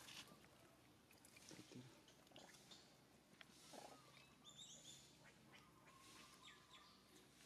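Near silence: faint outdoor ambience with scattered soft clicks and one brief high chirp about halfway through.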